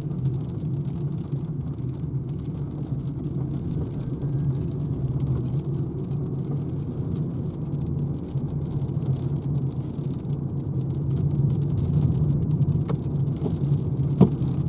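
Renault Zoe electric car driving, heard from inside the cabin: a steady low road and tyre rumble with no engine note. Faint high ticks repeat about two or three times a second in two short runs, and there are a couple of short knocks near the end.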